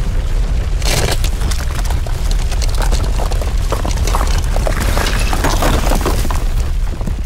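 Earthquake sound effect: a deep continuous rumble under dense cracking and crumbling, with a loud crash about a second in and breaking, shattering debris as the rubble falls.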